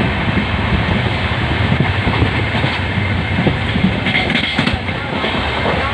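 Passenger express train running at high speed, heard from on board: a steady rushing rumble of coach wheels on the rails, broken by irregular clacks.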